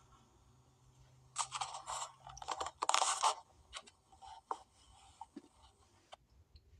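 Crunching, scraping rustle in a cluster of short bursts from about one and a half seconds in, then a few scattered small clicks.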